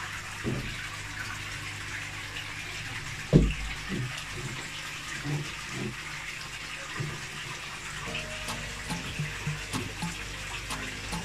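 Aquarium water: a steady rush of flowing water with irregular low gurgling bubbles as a mesh net is lowered into the tank, and one louder knock about three and a half seconds in.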